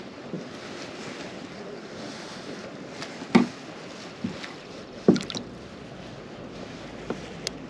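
A few short, sharp knocks and taps of gear against a kayak's hull, two of them louder, over a steady low background hiss.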